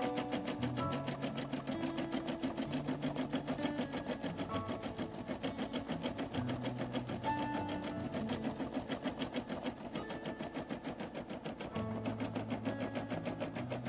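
Computerised embroidery machine stitching out a design in a hooped fabric: a fast, even rhythm of needle strokes over a hum that changes pitch in steps as the hoop is moved.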